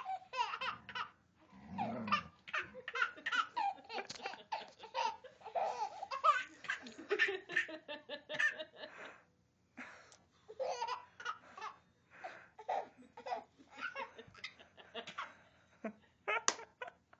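Baby laughing hard: long runs of quick belly laughs and giggles, broken by short pauses for breath.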